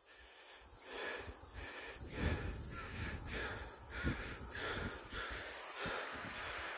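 A person breathing hard and raspily in a steady rhythm, about one breath every two-thirds of a second, winded from pushing a bicycle up a steep climb. Insects keep up a steady high hiss in the background.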